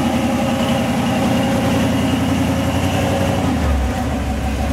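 Lifted 4x4 rock crawler's engine running under load as the truck climbs a rock ledge, a steady low pulsing note; about three and a half seconds in the note drops lower.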